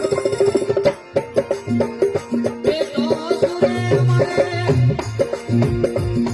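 Rajasthani folk bhajan music: a hand drum keeps a steady beat under a melody line, with a brief drop about a second in.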